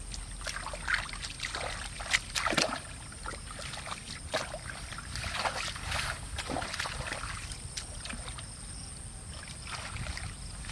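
Bare feet sloshing and splashing irregularly through shallow muddy water; near the end, hands stir the mud and water.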